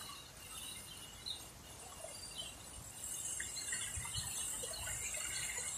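Outdoor ambience in light rain: a steady hiss of rain with faint, scattered bird chirps and a few soft low thumps.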